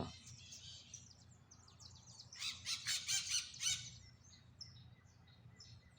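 A flock of parakeets chattering in rapid, high-pitched chirps, thickest in a burst of about a second and a half a little over two seconds in, with scattered calls before and after.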